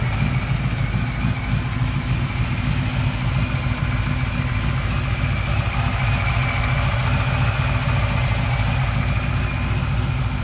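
Newly installed 406 small-block Chevrolet stroker V8 idling steadily with no revving, heard close up in the engine bay, running well.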